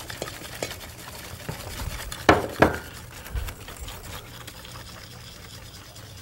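Kitchen utensils knocking against a mixing bowl: two sharp knocks close together about two and a half seconds in, among lighter taps and a dull thud. They come as cold water and a whisk are brought to a bowl of chickpea-flour batter mix.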